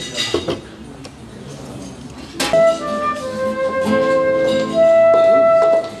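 A flute and a nylon-string classical guitar start playing together about two and a half seconds in. The flute holds long, clear notes over the guitar's chords. Before that, only a few soft handling clicks.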